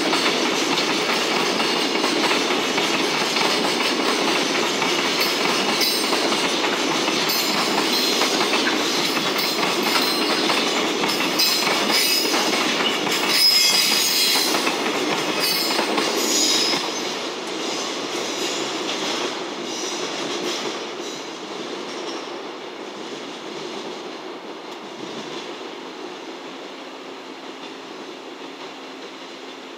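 Container flatcars of a long freight train rolling past, wheels clacking over rail joints, with a brief high wheel squeal about halfway. After about the middle the rumble dies away steadily as the end of the train passes and moves off.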